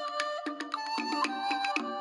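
Ringtone playing on an Apex SA237 phone: a short melody of electronic tones over a clicking percussion beat, repeating as a loop.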